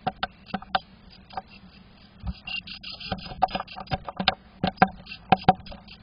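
A tit pecking and tapping at the wood of a nest box, heard from inside the box: sharp, irregular taps in quick runs, loudest in the last two seconds.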